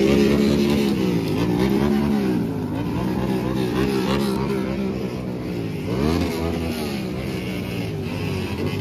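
Several small motorcycle engines running and being revved together, their pitch rising and falling, with a sharper rev about six seconds in.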